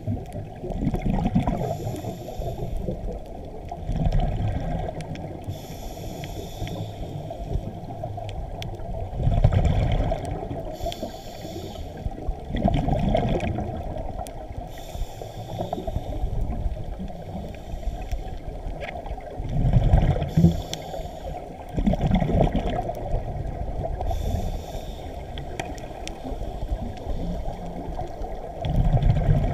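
A scuba diver breathing through a regulator, heard underwater: exhaled bubbles rumble and gurgle every three to four seconds, with a hiss on each inhale in between.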